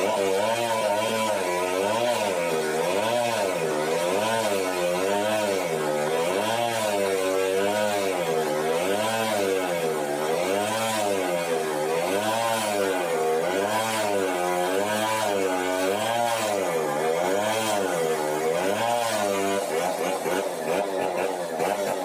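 Sawmill's drive engine running steadily, its pitch rising and falling about once a second, then evening out near the end.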